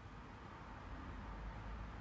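Faint steady background noise: a low hum with a soft hiss, and no distinct sound.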